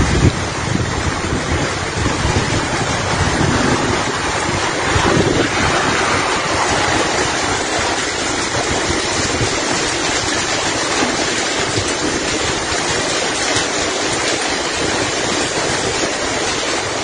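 Heavy downpour of rain and hail falling, a steady hiss, with wind buffeting the microphone through the first half.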